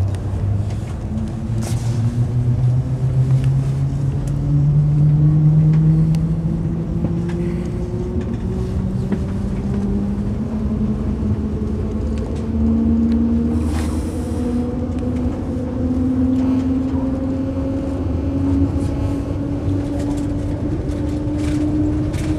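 Shanghai Maglev train heard from inside the carriage as it accelerates: an electric hum that climbs slowly and steadily in pitch as the train gathers speed, over a constant low rumble.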